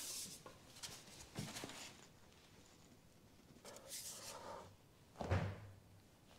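A man straining on a long tire iron to tighten a car's rear axle nut: quiet effortful breaths, a few light knocks and clicks from the bar and socket about a second and a half in, and a short grunt about five seconds in.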